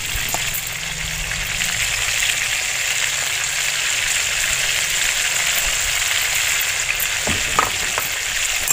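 Whole bitter gourds frying in hot oil in a kadai: a steady sizzling hiss.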